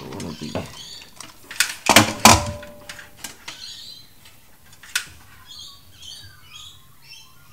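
Plastic clicks and knocks as ignition leads are handled and pushed into a distributor cap, loudest about two seconds in. In the second half a small bird chirps repeatedly.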